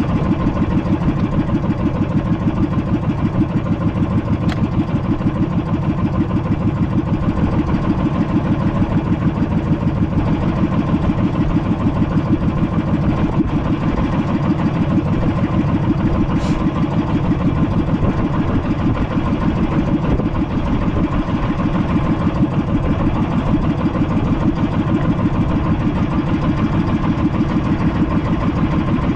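Small boat engine running steadily at an even speed, its rapid firing pulses unbroken throughout.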